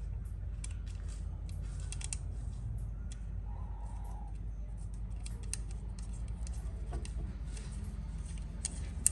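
Light metallic clicks and ticks of a small M6 bolt and washers being handled and threaded by hand into a freshly tapped hole in a cast engine sump, scattered and more frequent in the second half, over a steady low hum.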